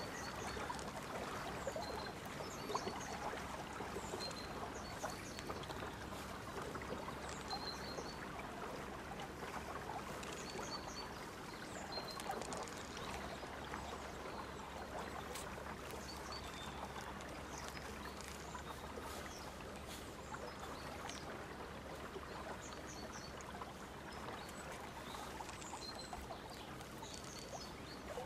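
Steady noise of flowing river water, with small birds chirping briefly now and then.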